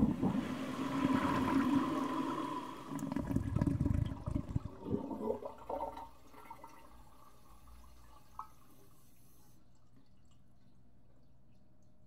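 Slow toilet flush: water rushes down the bowl, breaks into uneven surges, and trails off about six seconds in to a faint hiss.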